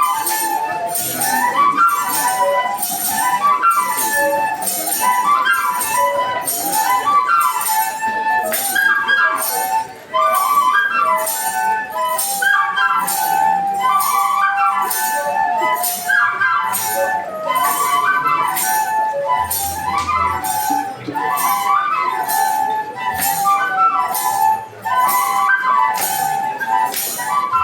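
Traditional Kenyan flute playing a quick melody of runs and trills, over a steady jingling beat of metal jingles.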